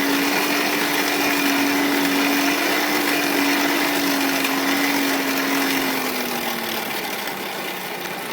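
Electric air blower feeding a forge fire, running with a steady whir and hum, then slowing and fading as it winds down about six to seven seconds in.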